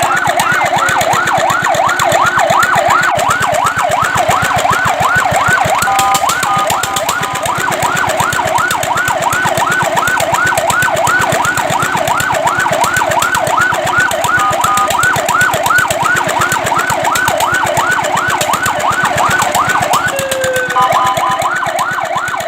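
Fire truck siren sounding in a fast yelp, its pitch sweeping up and down about four times a second, briefly broken by steady tones three times.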